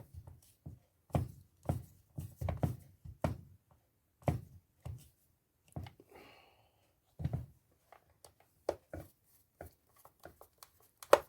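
Irregular knocks and clicks of jigsaw parts and tools being handled and fitted back together during reassembly, with a sharp, loud click near the end.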